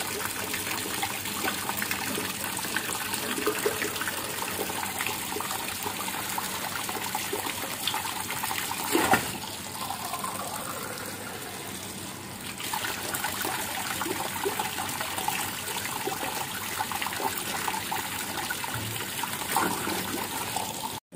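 Water from a newly fitted home filter running steadily from a tap into a plastic cup. There is a short knock about nine seconds in, and the flow is a little quieter for a couple of seconds after it.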